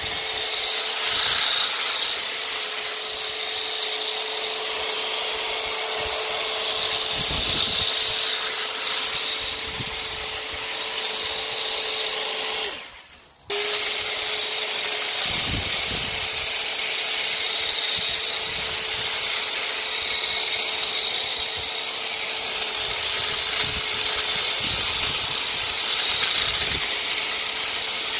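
Parkside PHSL 900 A1 900-watt electric long-reach hedge trimmer running with a steady motor hum as its reciprocating blade trims a hedge. It stops briefly about halfway through and starts again.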